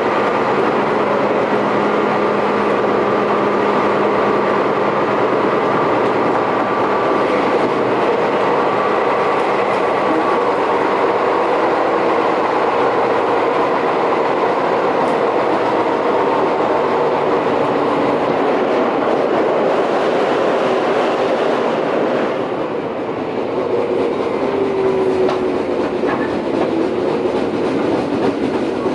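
Tobu 10050 series electric train running at speed, heard aboard car MoHa 15652: continuous wheel-and-rail noise with a rhythmic pounding from a large flat spot worn on a wheel, under several steady whining tones that drift slowly in pitch. The noise dips briefly about three-quarters of the way through, then picks up again.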